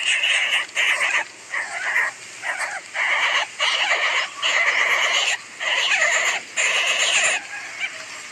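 Coucal chick giving harsh, rasping begging calls in a run of short bursts, about one or two a second, as it is fed a rat; the calls stop near the end.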